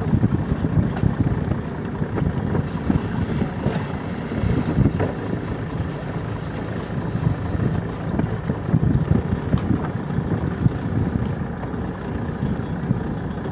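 Low, uneven rumble of wind buffeting the microphone aboard a boat on open water.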